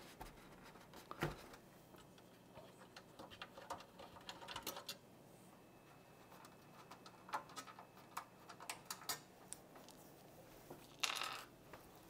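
Faint, scattered clicks and taps of hands working on a PC case, taking out the side-panel screws and lifting off the glass side panel, with a brief scraping rustle near the end.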